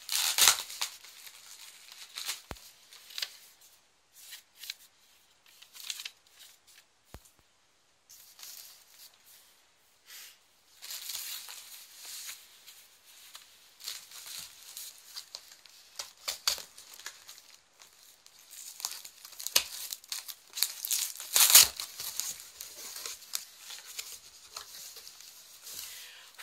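A cardboard box being opened by hand: irregular ripping and scraping of packing tape and cardboard, with crinkling between, in bursts separated by short pauses. The loudest rips come just after the start and again late on.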